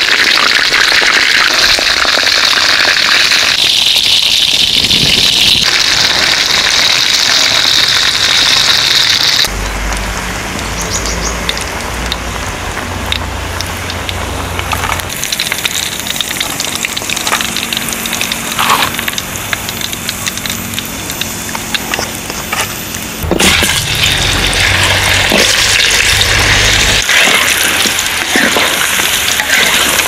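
Hot oil sizzling in a wok as quail deep-fries, a steady loud sizzle. About a third of the way in it drops to a quieter stretch with scattered clicks and a low rumble, and the loud sizzle returns about three quarters of the way in as the next batch fries.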